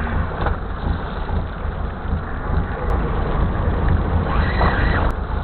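Steady deep rumble with a hiss, the running background noise aboard a small fishing boat at sea.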